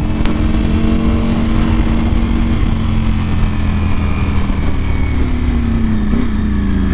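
Ducati Panigale V4R's 998 cc V4 engine through an Akrapovic exhaust, running steadily under way with a deep rumble; its note holds, then eases slightly lower in pitch after about halfway.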